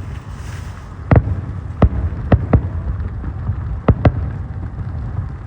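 Fireworks going off: about six sharp bangs spread over a few seconds, with a steady low rumble underneath.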